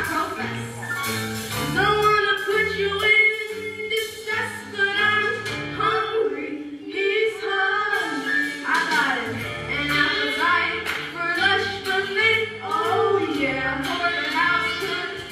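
A musical-theatre song: voices singing over instrumental accompaniment with a bass line.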